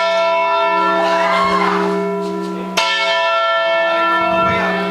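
A heavy church bell, swung by its rope, tolling slowly: the ring of the previous stroke hangs on as many steady overlapping tones, and a fresh stroke sounds nearly three seconds in.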